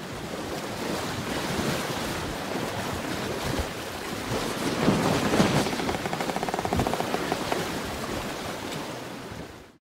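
Sea water washing and splashing around a sailing boat, with wind. It is a steady rushing that swells about halfway through and stops abruptly just before the end.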